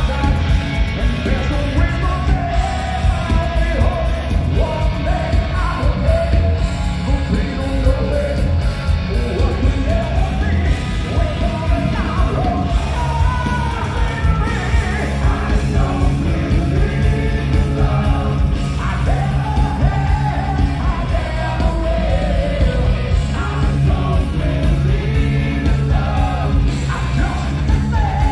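Live heavy metal band playing a song: a male lead singer belting the vocal line over electric guitars, bass and drums, loud and continuous.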